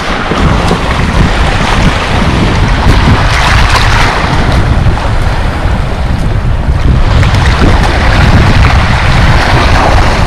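Strong wind buffeting the microphone, with choppy waves splashing; the noise swells and eases without a break.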